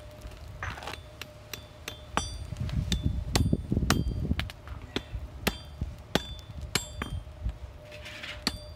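Hand hammer striking a hot steel bar on an anvil, about two blows a second, each with a short metallic ring: the handle of a fire poker being straightened.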